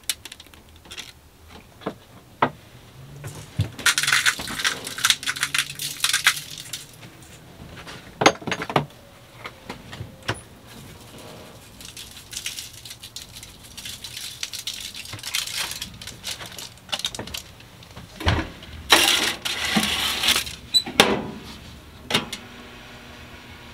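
Kitchen handling sounds: a foil-lined baking tray rustling and clinking, with scattered knocks and clicks, as it is slid into a countertop toaster oven. Near the end a steady low hum starts as the toaster oven is switched on.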